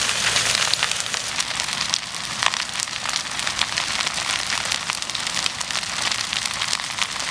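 Wood-frame house burning fully engulfed, its timbers crackling and popping in quick, irregular snaps over a steady hiss of flame.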